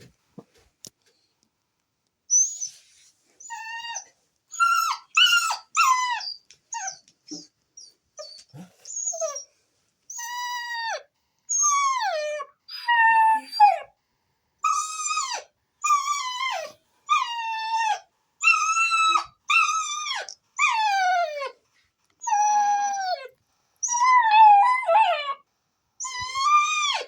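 Puppy howling and whining: a long run of short, high-pitched calls, most sliding down in pitch, about one a second after a brief pause near the start.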